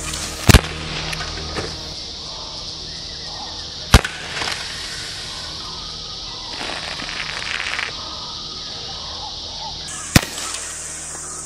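Walther CP88 .177 CO2 pellet pistol firing three sharp single shots: one about half a second in, one about four seconds in and one near the end. Soda hisses from a punctured can in between, over a steady high hiss.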